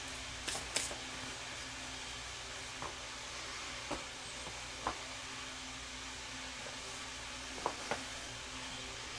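Machine tool running with a steady hum and hiss, with a few light clicks and ticks scattered through, two of them close together near the start and two more near the end.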